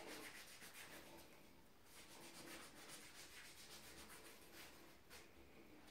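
Near silence, with faint rubbing of hands over the bare skin of the forearm.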